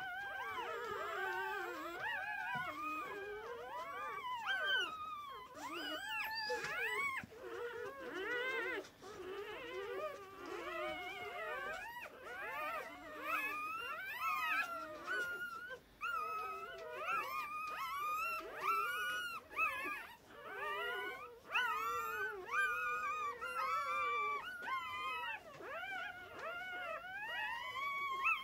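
Litter of one-day-old Finnish Lapphund puppies squeaking and whining, several high, wavering cries overlapping almost without a break.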